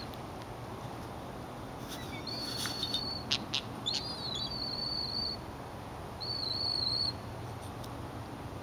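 A bird calling: three high, steady whistled notes, each under a second long, with a few faint clicks in between.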